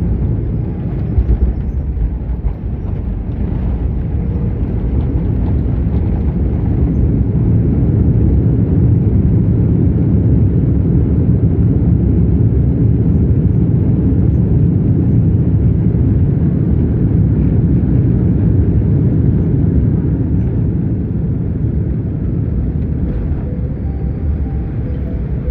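Airliner rolling on the runway on its landing gear: a loud, steady low rumble of tyres and engines, with a couple of brief knocks about a second in.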